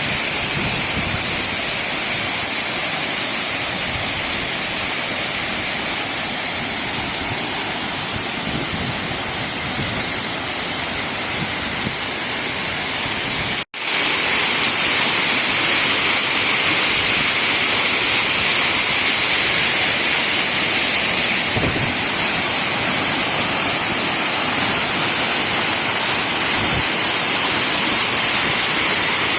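Waterfall: a steady, dense rush of falling water. It cuts out for an instant about halfway through and comes back louder.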